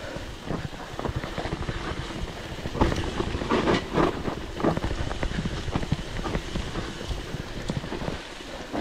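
Mountain bike rolling over a rough trail: the bike rattles and the tyres knock over bumps in a dense, irregular run of clatter over a low rumble.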